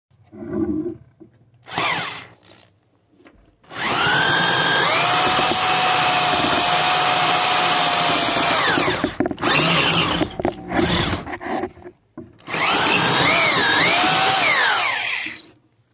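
Electric drill running in bursts. After a few short pulses comes a long run of about five seconds at a steady whine, then more quick pulses, and then a second run whose whine dips and recovers several times as the drill works under load.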